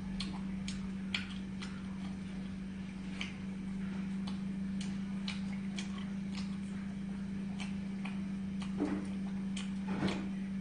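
A steady low hum with small, irregular clicks and ticks scattered over it, a couple of them a little stronger near the end.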